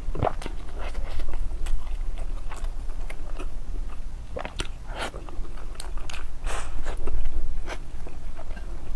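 Close-miked eating: a person biting and chewing food, with irregular crisp clicks and mouth smacks.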